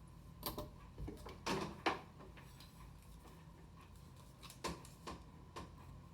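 A handful of short, light clicks and taps from handling a hair-styling iron as it is placed on and moved through sections of hair, two close together near 2 seconds in and another cluster near the end.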